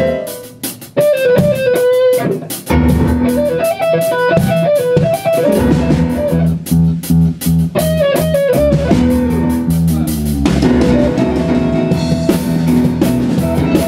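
A rock band playing: electric guitar picking a melodic line over a Ludwig drum kit. The bass comes in about three seconds in.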